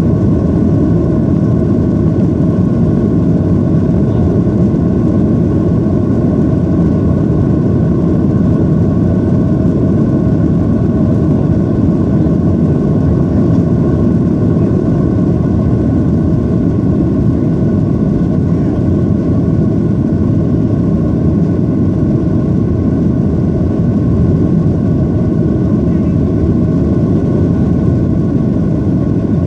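Steady cabin noise of a jet airliner at climb power just after takeoff, heard from a window seat: a deep, even rumble of engines and airflow with faint steady whining tones above it.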